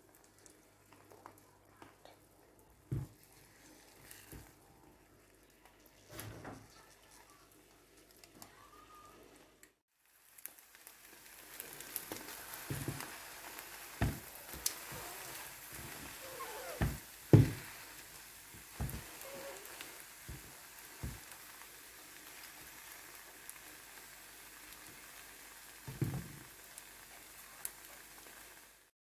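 Bread omelette frying in oil on a hot tawa: a steady sizzle starts about ten seconds in, just after a brief silent gap. Several sharp knocks sound over it, the loudest about two-thirds of the way through. Before the sizzle there is only faint sound with a few knocks.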